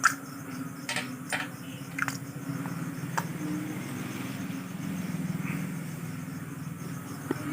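A small engine running steadily at low speed, a low even hum with a fine regular pulse, with a few sharp clicks and knocks in the first three seconds.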